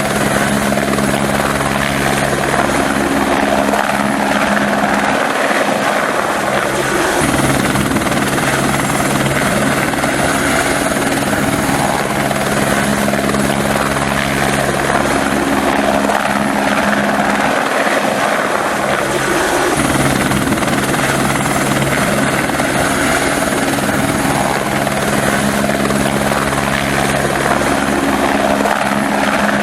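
Helicopter flying, its rotor and engine running steadily at an even, loud level with a constant low drone.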